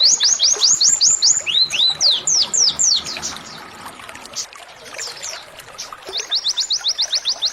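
Domestic canary singing its rapid 'tembakan' trill: fast runs of sharp, high, downward-sweeping notes at about eight a second. Midway it breaks into a softer, looser phrase, and the fast even trill starts again about six seconds in.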